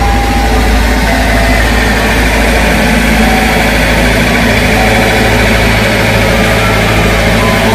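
Ice cream truck's engine running steadily with a low rumble, while a few last notes of its chime melody sound in the first seconds.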